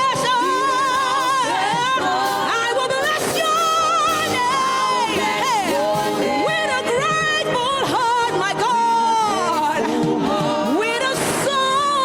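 Worship singing: a voice singing a slow praise song with strong vibrato and sliding ornaments over musical accompaniment.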